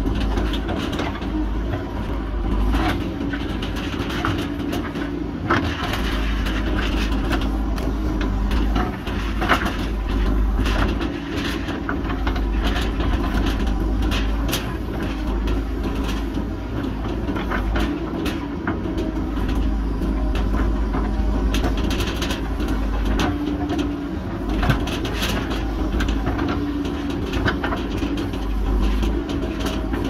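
JCB backhoe loader's diesel engine running steadily under load as the backhoe digs into the hillside soil, with scattered knocks and clatters from the bucket working through earth and stones.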